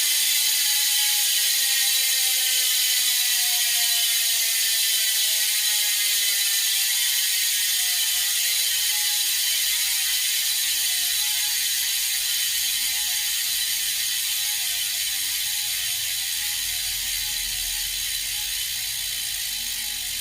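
Vel 50 RL carbon wheel's freehub ticking as a rapid buzz of clicks while the wheel freewheels. The click rate falls slowly as the wheel coasts down.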